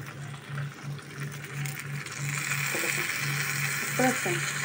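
Fish paturi with potato and onion on turmeric leaves sizzling in an oiled frying pan over a low gas flame. The sizzle grows louder about two seconds in and then holds steady.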